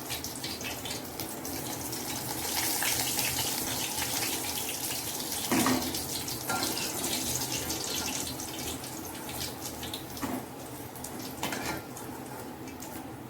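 Chicken pieces deep-frying in hot oil, a steady sizzle full of fine crackles that swells a few seconds in. A utensil knocks against the pan a few times as the fully fried pieces are lifted out.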